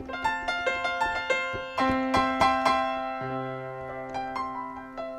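Yamaha MX49 keyboard synthesizer playing its "Rock piano" voice: a quick run of struck piano notes over a held note, with a low bass note joining about three seconds in and ringing under the rest.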